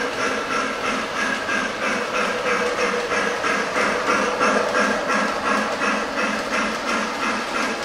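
Lionel O-gauge toy steam locomotive and its freight cars running past on the track, with a fast, even chuffing rhythm over the rolling of the wheels.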